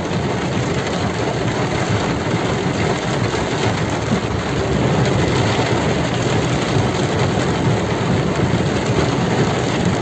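Heavy rain falling on a car's roof and windscreen, heard from inside the moving car, with the steady noise of its engine and tyres running through floodwater underneath.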